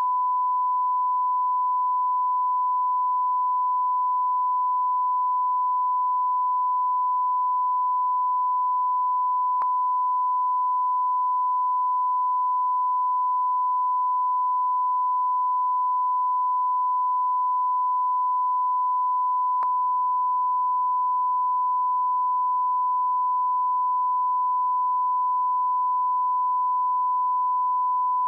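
Steady 1 kHz line-up tone, a single pure beep held at constant level, played with SMPTE colour bars as the audio level reference at the head of a broadcast tape. Two faint clicks break it, about ten seconds apart.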